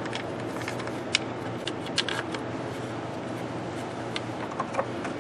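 A few small metallic clicks and taps as bolts are started by hand into the thermostat housing, over a steady low hum.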